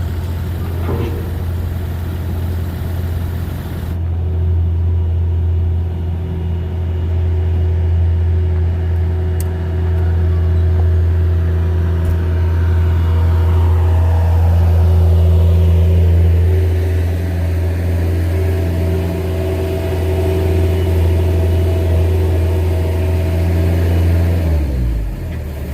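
An engine running steadily with a deep hum, its pitch dropping sharply near the end.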